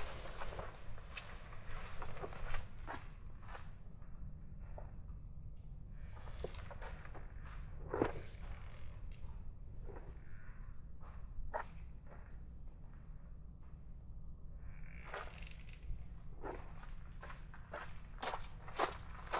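Insects shrilling in one steady high-pitched note, with scattered light clicks and knocks over it, the sharpest about two and a half seconds in and about eight seconds in.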